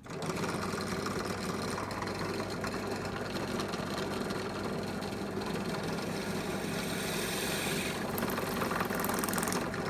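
Electric drill running steadily with a hole saw fitted, its pilot drill bit boring through a sheet of styrene plastic; the motor starts at once and stops just before the end.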